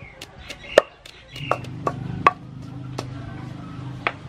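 Wooden pestle pounding chili and garlic in a wooden mortar: a run of sharp, irregular knocks, about seven in all, the loudest under a second in.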